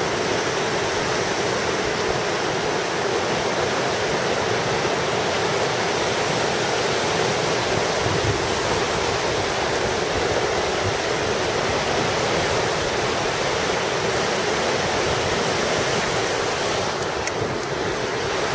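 Whitewater rushing steadily down a concrete slalom canoe channel, a constant churning of rapids.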